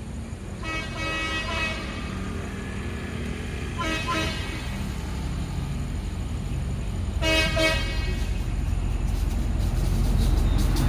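Horn of an approaching diesel passenger train locomotive, sounded three times: a blast of about a second, a shorter one, then a third. Beneath it the rumble of the oncoming train grows louder toward the end, with wheel clicks starting near the end.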